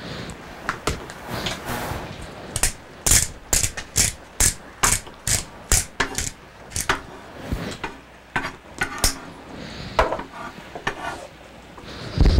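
Hand-twisted pepper mill grinding, a series of sharp ratcheting clicks at about two to three a second, then more irregular. A louder thump near the end.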